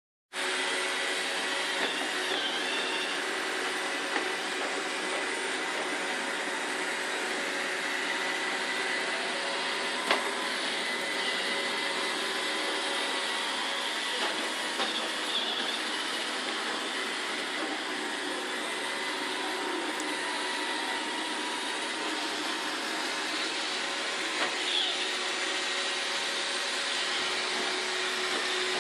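iRobot Roomba 631 robot vacuum cleaner running, a steady whir of its suction motor and brushes with a few steady tones in it, broken by a few brief light knocks.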